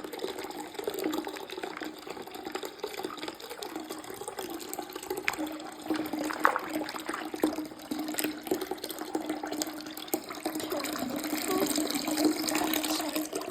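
Water splashing and trickling as small plastic fidget toys are washed by hand in soapy water, with scattered small knocks and splashes.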